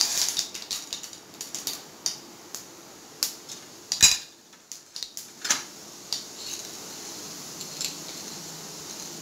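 Metal clinks and taps of a spoon against a frying pan and steel spice-box containers, with one sharp clank about four seconds in. A faint steady hiss runs beneath, from urad dal and mustard seeds frying in hot oil for a tempering.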